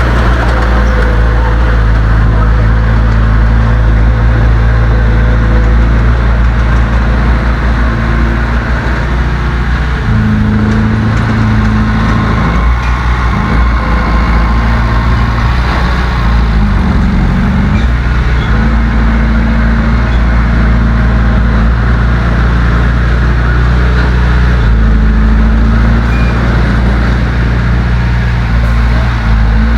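Heavy diesel engine of earthmoving machinery running loud and steady under load, its pitch rising about a third of the way in, then dipping and coming back up a couple of times.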